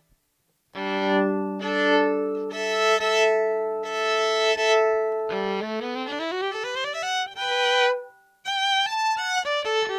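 Yamaha SV-150 electric violin played bowed through one of its built-in sounds. It starts about a second in with held notes sounding two or more pitches together. Then comes a fast rising run up the scale, a brief break, and a string of quick short notes.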